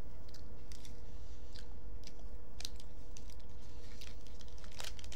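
Chewing a crunchy sesame and almond bar: irregular crisp crunches over a steady low hum.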